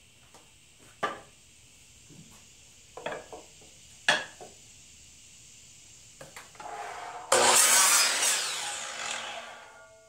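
A few sharp knocks as a thin wood strip is set on the saw table, then a DeWalt sliding compound miter saw starts up and cuts through the strip about seven seconds in. The cut is the loudest sound and fades over the next couple of seconds.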